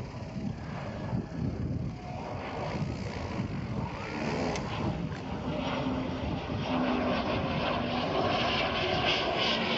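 Radio-controlled scale model of a Pilatus Porter with a turbine driving its propeller, running and getting louder as power comes up for the taxi. A rising hiss and whine builds from about halfway through, with a steady low propeller hum coming in.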